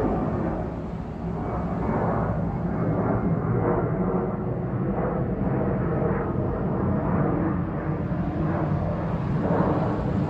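Airplane flying overhead: a steady low engine drone.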